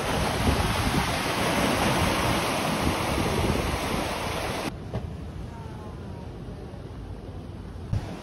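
Sea surf washing over rocks below, a steady rush of waves with wind buffeting the microphone. A little past halfway it cuts to a quieter, duller rumble of wind.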